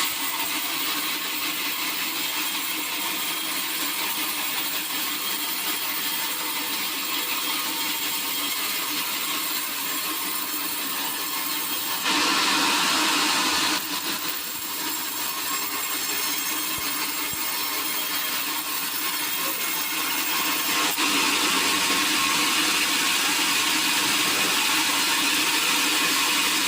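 Sawmill saw cutting through teak wood, a steady sawing noise that gets louder for about two seconds near the middle and stays somewhat louder over the last few seconds.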